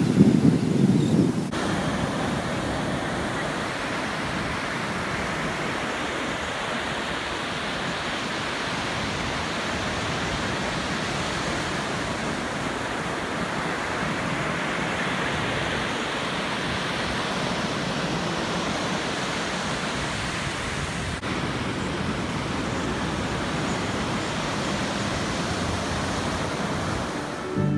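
Ocean surf breaking and washing up a sandy beach: a steady rushing hiss. Wind buffets the microphone for the first second or so.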